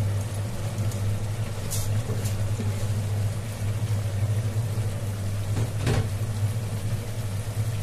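Steady low hum from the kitchen, with a few brief soft scrapes and rustles as soaked rice is tipped from a bowl into a pot and spread by hand, about two seconds in and again near six seconds.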